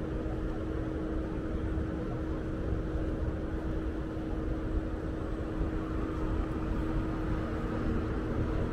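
Steady city traffic noise: a low, even rumble with a constant hum.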